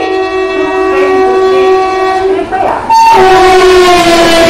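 Electric locomotive's horn blowing a long, steady note as a passenger train approaches at speed. About three seconds in, the locomotive rushes past with a sudden loud burst of wheel and track noise, and the horn's pitch drops as it goes by.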